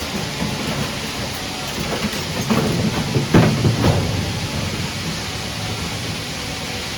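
Refrigerator recycling line machinery running with a steady rumble and clatter, with a few heavy knocks and clanks about two and a half to four seconds in.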